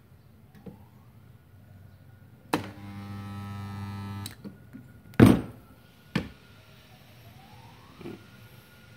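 Portable 2.5 kVA mini spot welder firing on two 0.5 mm steel plates: a click as the lever clamps the electrodes, then a steady mains hum from the welding transformer for about a second and a half while current flows. About a second after the hum stops comes a loud, sharp clack, then a lighter click.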